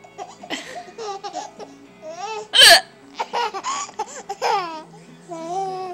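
A baby laughing in short repeated bursts at a woman's hiccups, which break in among the giggles. The loudest is a sharp squeal of laughter a little before halfway.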